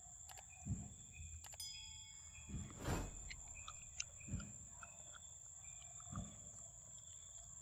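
Forest ambience: a steady high-pitched insect drone with scattered short chirps and clicks over it, and a few dull low thumps about every one to two seconds, with one sharp louder sweep about three seconds in.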